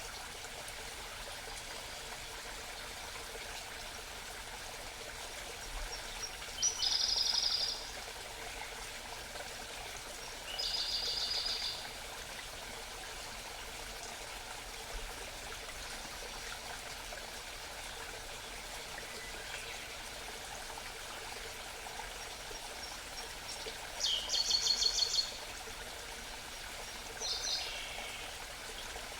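Steady murmur of a small mountain stream, with a songbird singing short high trills of rapidly repeated notes four times, each about a second long.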